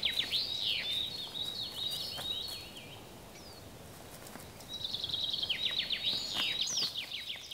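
A songbird singing in two bouts of quick, repeated falling notes, with a pause of about two seconds between them, over a faint outdoor background.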